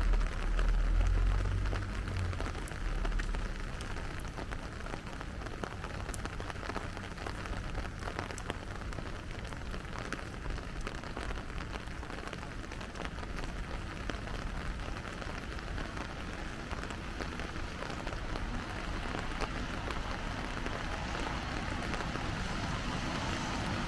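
Steady rain falling on the street, a constant hiss with the patter of separate drops. A low rumble sounds in the first couple of seconds, then fades.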